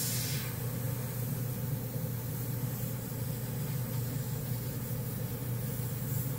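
Badger Sotar 2020 airbrush hissing as it sprays fine lines at low pressure, cutting off about half a second in, over a steady low motor hum.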